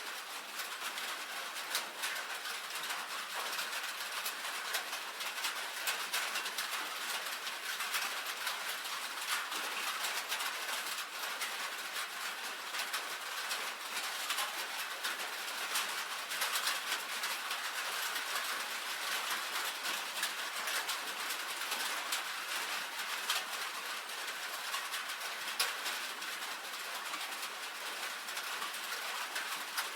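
Rain falling steadily on a tin roof: a dense, even patter of countless small drop ticks on the metal over a light hiss.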